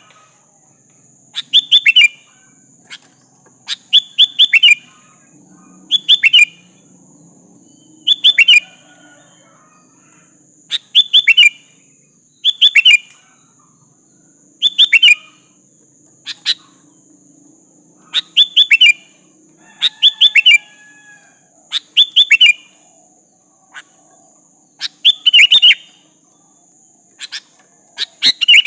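Sooty-headed bulbul (kutilang) singing a loud, short bright phrase of a few quick notes, repeated about every two seconds. A steady high hiss runs behind it.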